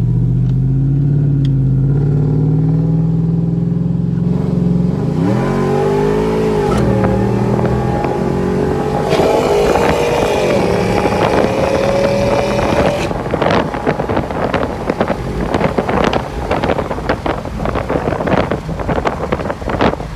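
Chevrolet Silverado pickup's engine and exhaust, through a Borla ProXS muffler, accelerating hard through the gears, heard from inside the cab with the windows down: a climbing engine note broken by gear changes. From about two-thirds of the way in, buffeting wind from the open windows takes over.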